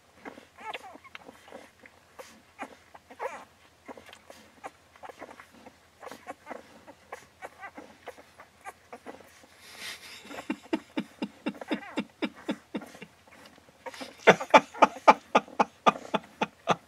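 Akita puppies, twelve days old, squeaking and grunting as they jostle to nurse on their mother. Two runs of rapid, rhythmic pulses, about five or six a second, come partway through and again, louder, near the end.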